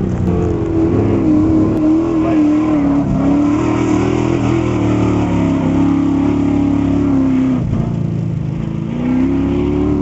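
Off-road race truck engine running hard as it speeds past, its pitch wavering with the throttle, dropping sharply about eight seconds in, then climbing again as it accelerates away.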